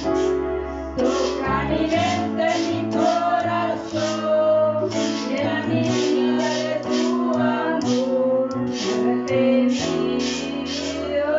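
A woman and children singing a worship song to an electronic keyboard, with sustained bass notes and a steady beat.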